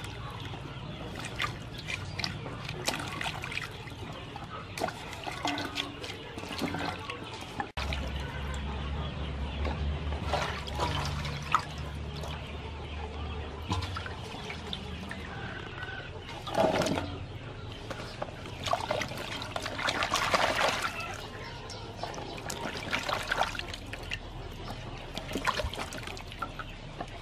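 Hands swishing and rubbing vegetables in water in a large aluminium basin: irregular splashing and trickling of water.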